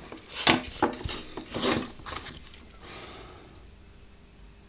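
Several short rasping rubs and scrapes from tools being picked up and handled as a soldering iron and solder are brought to a stripped battery wire, then a faint brief hiss about three seconds in as the hot iron and solder meet the wire to tin it.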